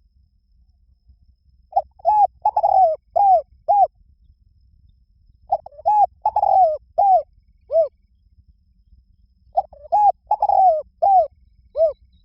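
Spotted dove cooing: three phrases of five or six short, falling coos, each phrase about two seconds long and about four seconds apart.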